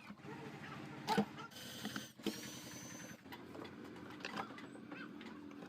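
Mechanical clicks, knocks and rattling from hand work on a mixer grinder during a bush change, over a low steady hum, with a brief high thin tone in the middle.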